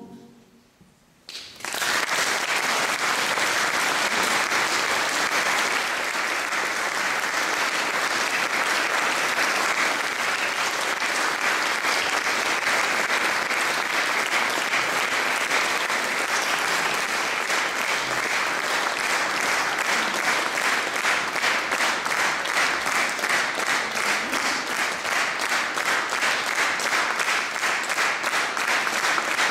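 Audience applause in a reverberant church, starting about a second and a half in as the choir's final chord dies away, and going on steadily; in the last several seconds the claps fall into a more even rhythm.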